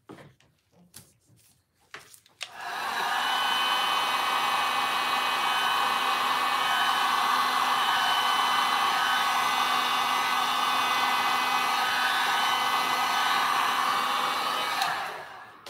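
A few faint clicks, then a heat gun switched on about two and a half seconds in. It blows steadily with a fan whine over the air noise, then is switched off near the end.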